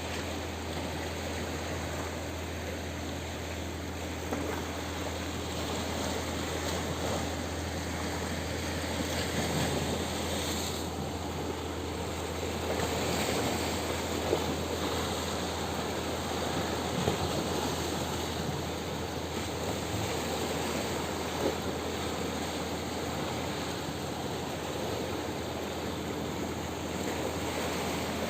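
Sea waves washing over rocks, a steady rush of surf that swells a little partway through.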